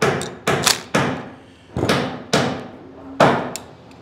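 Steel garage door bracket clanking as it is handled and its sliding part worked out: about eight irregular sharp metallic knocks.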